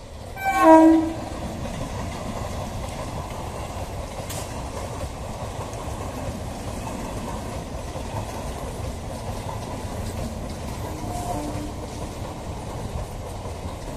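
An electric MEMU train's horn sounds one short blast about half a second in. The train then runs past with a steady rumble of wheels on the track, and a faint horn note comes near the end.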